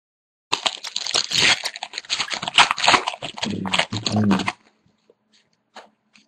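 A foil trading-card pack wrapper crinkling and tearing as it is ripped open and handled for about four seconds, followed by a few faint clicks.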